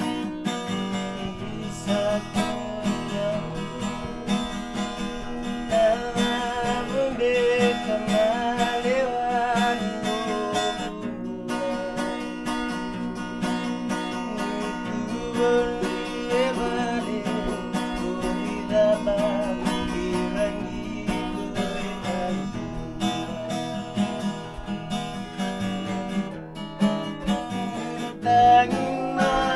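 Acoustic guitar strummed and picked, with a wavering melody line running above the chords.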